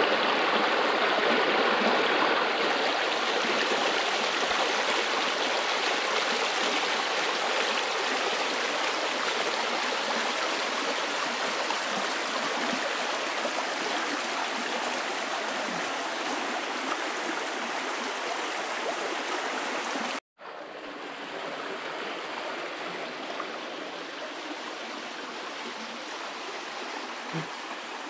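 Steady rush of creek water flowing. It breaks off for a moment about twenty seconds in and comes back quieter.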